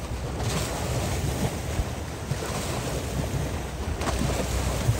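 Small waves washing against a rocky shoreline, with two surges about half a second in and about four seconds in, under a steady rumble of wind on the microphone.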